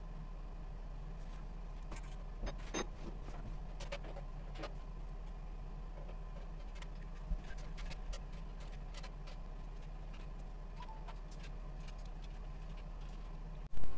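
Occasional light metallic clicks and knocks as hands work on a jointer's steel stand and table, over a steady low hum. One much louder sharp knock comes near the end.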